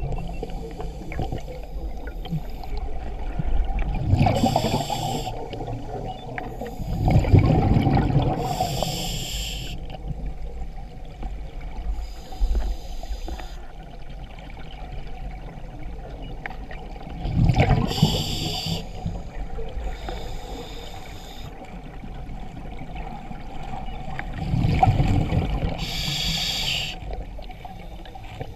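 A scuba diver breathing through a regulator underwater: a hiss on each inhalation and a rumbling gush of exhaled bubbles, repeating every few seconds over several breaths.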